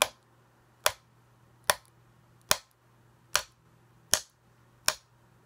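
Sharp taps on a plastic solderless breadboard, seven brief clicks evenly spaced about one every 0.8 seconds, made to trigger a microphone sound sensor module.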